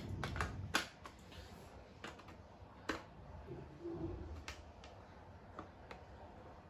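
Irregular plastic clicks and taps as AA batteries are pressed into the battery compartment of a Nerf Fortnite SCAR-L blaster and the blaster is handled. The sharpest clicks come about a second in and about three seconds in.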